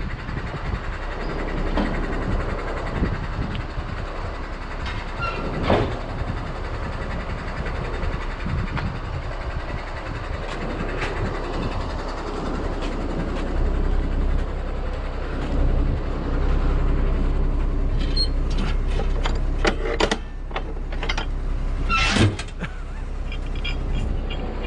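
Heavy tow truck's diesel engine running steadily, growing louder from about halfway through, with several sharp knocks near the end.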